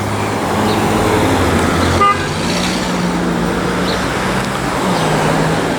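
Street traffic: a motor vehicle's engine running close by, with a brief car-horn toot about two seconds in.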